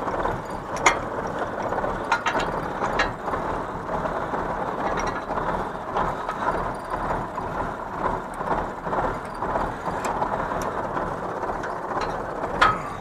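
MTZ tractor engine idling steadily while a PTO shaft and hydraulic hoses are coupled to a bale wrapper, with sharp metal clicks and clinks from the couplings every second or two, the sharpest near the end.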